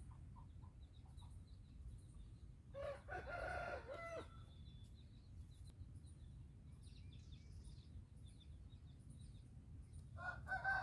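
Aseel rooster crowing: one short crow about three seconds in, and another call starting near the end. Faint high chirps of small birds in the background.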